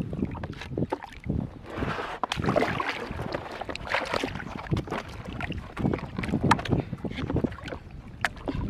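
Water splashing and lapping close by as a fishing net is paid out by hand over the side of a small boat, with irregular small splashes and drips.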